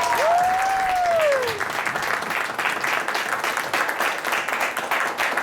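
Theater audience applauding, with two whoops that rise and then fall in pitch in the first second and a half.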